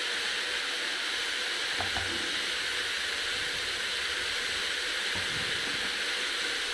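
Potato cubes frying in mustard oil in an open pressure cooker: a steady, even sizzle, with a couple of faint small knocks.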